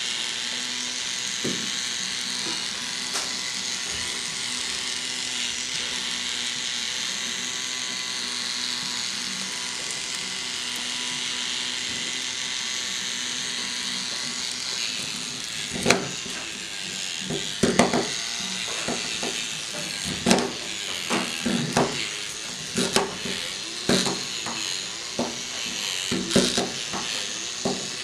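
Small K'NEX electric motor whirring steadily as it drives the paintbrush arms. From about 16 s in, irregular knocks and clattering join it as the machine bounces and scrapes across the paper.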